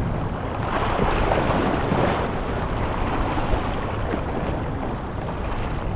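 Boston Whaler Dauntless 180 running at speed through chop on its Mercury 150 outboard: a low engine drone under the hiss and wash of spray off the hull. The spray swells louder about a second in. Wind buffets the microphone.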